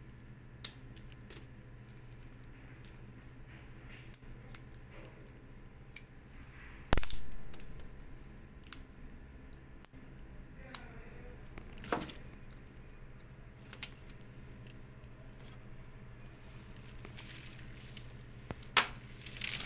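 Small clicks and crackles of hands working a Porsche Cayenne key fob and CR2032 coin-cell batteries, with one sharp crack about seven seconds in and a few more near the end, over a steady low hum.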